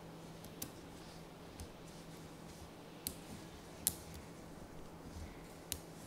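Small magnetic balls clicking as they snap together under the fingers: about five sharp, isolated clicks, spread irregularly, over a faint steady hum.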